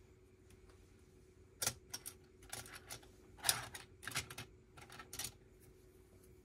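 Plastic Lego pieces clicking and rattling as they are handled and pressed together: a run of small clicks and short rattles starting about a second and a half in, the loudest near the middle.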